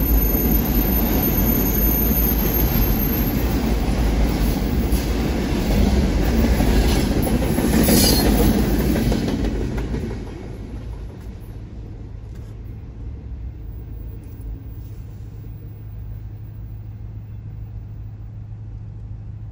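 Freight cars rolling past on steel wheels, with a high wheel squeal for the first few seconds. About ten seconds in the last car passes and the noise drops away, leaving a steady low hum.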